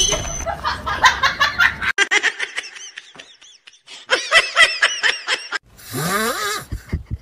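A person laughing in a run of quick, high-pitched giggles, followed about six seconds in by a long snore that rises in pitch.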